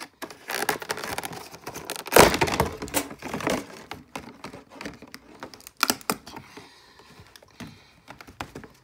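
Stiff clear plastic blister packaging being pried and pulled apart: dense crackling and popping, with one loud crack about two seconds in. Scattered clicks and taps follow as the small plastic figures come loose.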